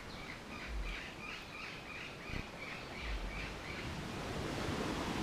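A bird calling a quick run of about a dozen short, similar notes, three or four a second, that fades out after some three seconds, over a steady background hiss.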